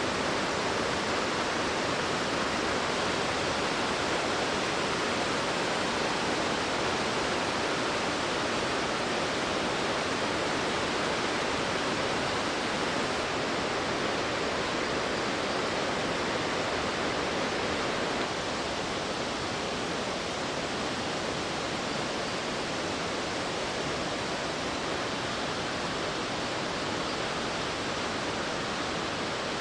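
Waterfall: a steady, dense rush of falling water, which drops slightly in level a little past halfway through.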